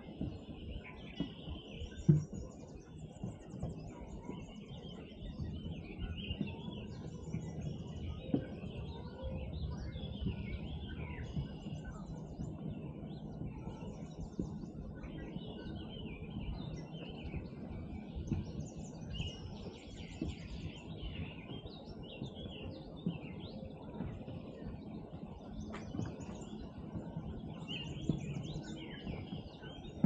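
Chorus of many small songbirds singing and calling at once, overlapping chirps and trills throughout, over a steady low rumble.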